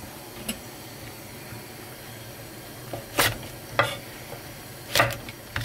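Chef's knife cutting a red chili pepper and knocking on a wooden cutting board: a faint tap about half a second in, then four sharp knocks in the second half, unevenly spaced, over a steady low hiss.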